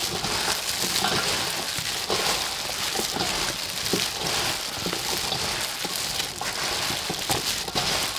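Plastic-gloved hands tossing shredded cabbage salad in a stainless steel bowl: irregular crinkling of the plastic gloves and rustling of the wet vegetables, over a steady background hiss.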